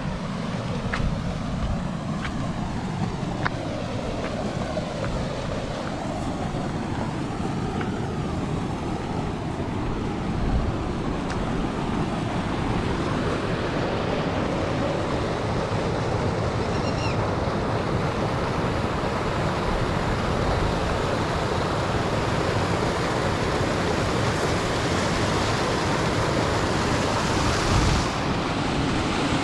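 Water rushing over a stone check dam spillway, a steady noisy rush that grows fuller about halfway through, with wind buffeting the microphone.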